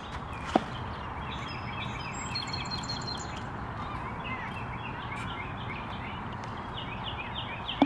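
Small birds chirping and singing steadily over outdoor background noise, with a single light tap about half a second in.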